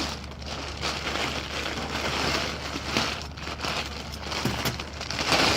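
Large plastic bag crinkling and rustling as it is handled.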